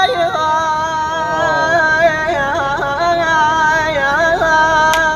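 A solo voice singing an Iraqi-style song line, holding long notes on a vowel and decorating them with quick melismatic turns.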